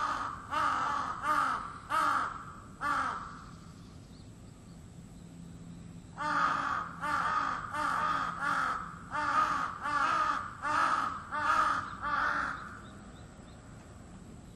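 Crow cawing in two runs of repeated harsh caws: about five in the first three seconds, a pause of about three seconds, then about nine more before it stops near the end.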